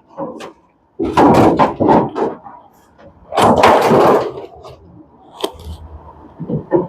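Back cover panel of a top-loading washing machine being pulled off and handled: two bursts of rattling and scraping, then a sharp knock.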